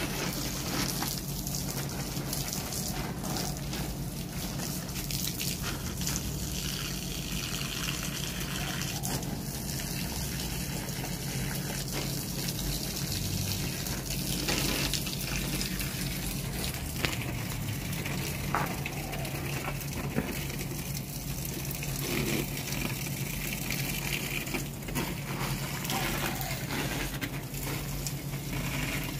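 Water from a garden hose spraying in a steady stream onto potted plants and soil, with a steady low hum underneath.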